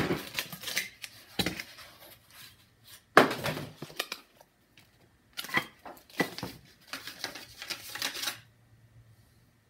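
Packing being handled and pulled from a shipping box: cardboard, plywood packing pieces and bubble wrap rustling and knocking, with a steel part clinking, in several bursts that stop shortly before the end.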